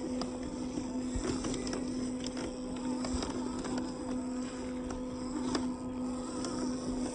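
Small electric motor of a radio-controlled 4x4 truck running with a steady, even hum, with scattered clicks and knocks over it.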